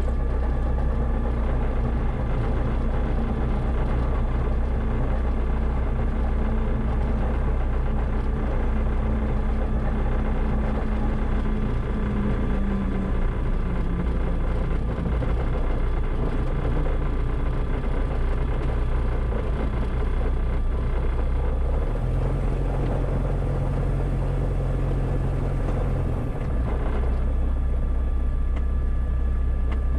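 Diamond DA-20's piston engine and propeller running steadily as the light aircraft rolls along the runway after landing, heard from the cockpit as a loud, even drone. Its low hum shifts for a few seconds about two-thirds of the way through.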